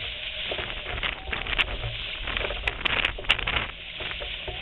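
Kayak paddle splashing and water lapping against the hull, with a few sharp clicks between about one and a half and three and a half seconds in.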